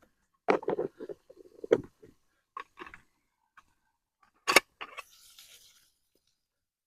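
Cooking-gear handling at a camp-stove frying pan: scattered knocks, clicks and scrapes, a sharp clack about four and a half seconds in, then a brief hiss of food sizzling in hot oil.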